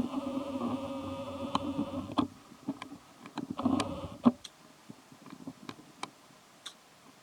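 An insect buzzing steadily close by, twice: about two seconds at the start, then briefly again about three and a half seconds in. Scattered small clicks run throughout.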